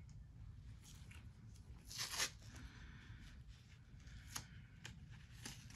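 White athletic tape pulled off its roll, with one short rasping strip-off about two seconds in. Then a few faint crinkles and ticks as the tape is laid around the heel for a heel lock.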